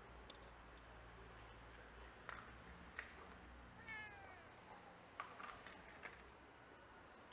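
A cat meows once, a short falling call about four seconds in. Around it come a few faint sharp clicks and crunches of cats chewing dry kibble from a plastic tray.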